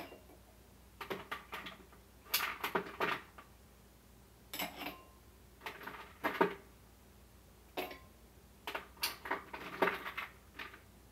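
Ice cubes being dropped into a stemmed drinking glass, clinking against the glass and each other in short, irregular clatters every second or two.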